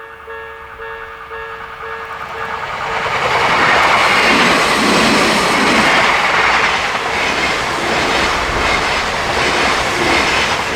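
Odakyu Electric Railway level-crossing warning bell ringing in its distinctive repeating tone, then a train passing through the crossing. The rush of the train builds from about three seconds in and drowns out the bell, with a steady run of clacks from the wheels over the rail joints.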